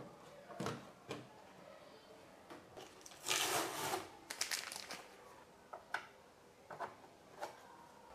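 Hands handling a 3D printer's back panel: a few sharp clicks and taps as a plastic filament tube is pushed into the extruder port fittings, a plastic packet rustling for about a second, about three seconds in, then scattered light clicks.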